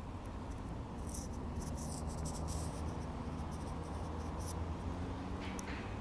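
Outdoor background sound: a steady low rumble, with a flurry of faint, quick high ticks from about one to four and a half seconds in and a single sharper click near the end.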